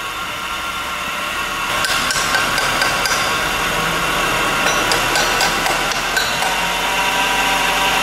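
A 1997 Nissan Altima's 2.4-liter four-cylinder engine idling rough, typical of its cylinder 4 misfire, with a steady whine that sounds like the alternator, which the owner suspects is a bad alternator bearing. From about two seconds in, a screwdriver handle taps several times on the MAF sensor to check for a loose connection.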